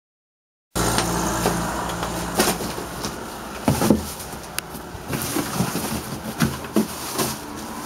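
Silence for the first moment, then street traffic noise with a vehicle engine running nearby. Over it come scattered knocks and rustles as plastic bags and cardboard boxes are handled.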